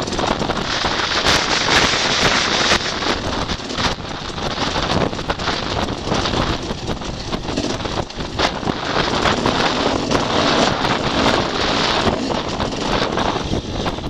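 Enduro motorcycle riding over stony grass, heard from a camera mounted on the bike: wind buffets the microphone over the engine, with frequent short knocks from the terrain.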